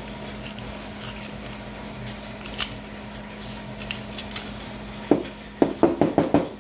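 Pliers nipping and crunching crumbly clay matrix off a chrysocolla rock: scattered small clicks, then a quick run of about six sharper knocks near the end, over a steady low hum.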